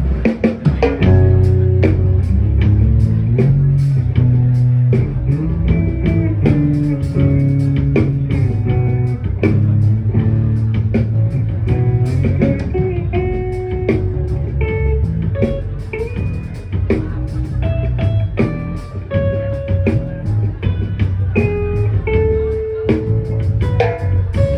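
A live band playing an instrumental passage: guitar lines over bass guitar and a drum kit keeping a steady beat, with no vocals.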